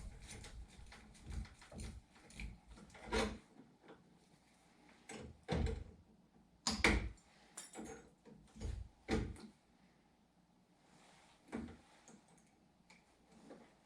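Irregular knocks and clunks, several loud ones in the first nine seconds and then only a few faint ones.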